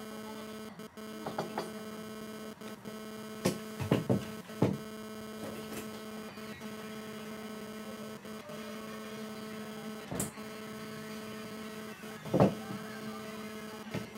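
A steady electrical hum on one low note with fainter higher tones above it. Several sharp knocks cut through it, the loudest near the end.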